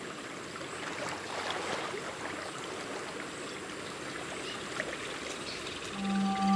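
Running water trickling steadily, like a shallow stream, with a few faint splashes. A low held tone comes in near the end.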